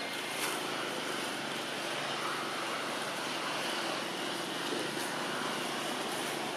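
Steady outdoor background noise, an even hiss with no distinct event.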